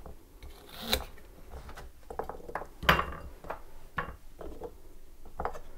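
Kitchen knife cutting carrots on a bamboo cutting board: several irregular knocks of the blade hitting the wood, about half a second to a second apart.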